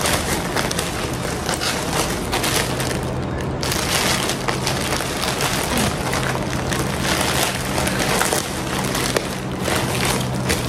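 Plastic poly mailer bag crinkling and rustling continuously with many sharp crackles as it is pulled and torn open by hand.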